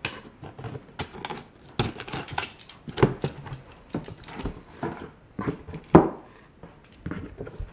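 Utility knife slitting packing tape on a cardboard box, then the cardboard flaps being pulled open: irregular scraping, tearing and clicking, with a louder knock about six seconds in.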